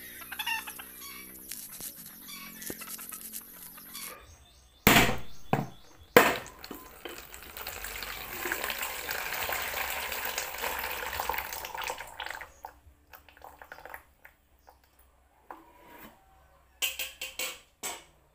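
A mature coconut is struck twice with a large knife, two sharp loud cracks about a second apart, and then its water pours from the split shell into a plastic basin as a steady splashing for several seconds before trailing off. A few light knocks follow near the end as the coconut is handled.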